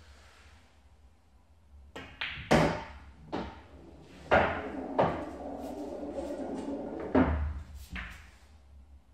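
Pool balls on an English pool table: the cue striking the cue ball, then sharp clacks as the balls collide and hit the cushions, with a louder run of knocks about two seconds in and again around four to five seconds in. In between, a steady rumble of a potted ball rolling through the table's ball-return channel.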